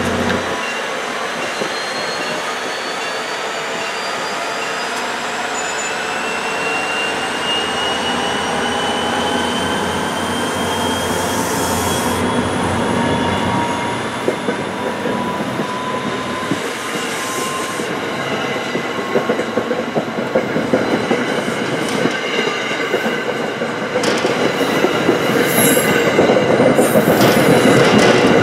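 New Jersey Transit passenger coaches rolling past close by as the train picks up speed, with a whine that rises slowly in pitch. Steel wheels clack over rail joints, more often and louder in the last few seconds.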